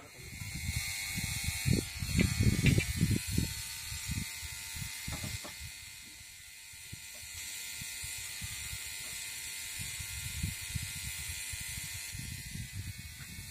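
Irregular low knocks, clunks and a few metallic clicks from hands working on a stationary engine's parts, most of them in the first few seconds, over a steady faint hiss.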